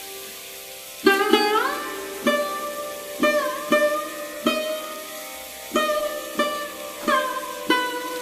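Background music: a plucked string instrument plays a slow melody, a note struck about every half second to a second, several of them sliding up or down in pitch.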